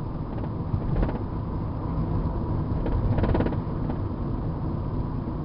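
Car being driven, heard from inside the cabin: a steady low road and engine rumble, with a short rattle about a second in and another, longer rattle around three seconds in.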